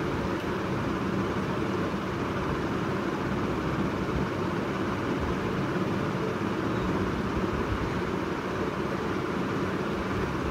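A room fan running steadily: a constant whir with a low hum underneath and no change.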